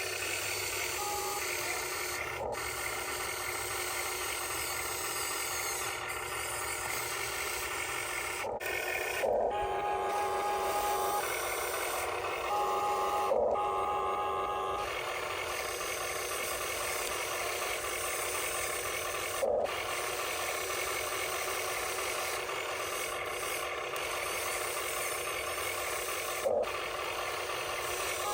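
Small electric gear motors of radio-controlled toy construction machines whirring and whining, with a higher whine switching on and off twice in the middle as the controls are worked.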